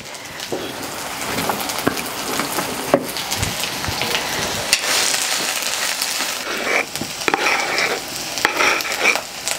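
Chopped onion, garlic and chile sizzling and crackling as they fry in hot oil. Near the end, a wooden spatula scrapes across a wooden cutting board several times.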